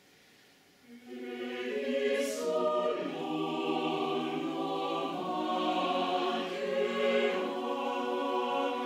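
Mixed choir of men's and women's voices singing slow, held chords, coming in about a second in.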